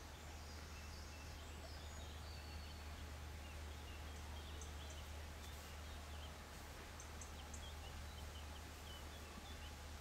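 Faint outdoor park ambience: a steady low rumble with light hiss, small birds chirping faintly and sparsely in the second half, and a few brief high ticks.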